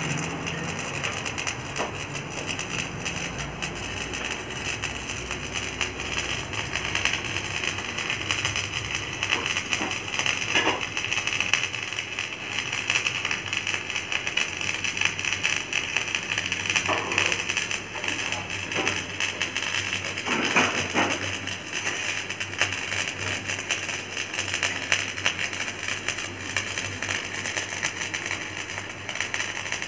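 Electric arc welding on a steel loader boom: the arc gives a steady crackling sizzle, with a low steady hum underneath.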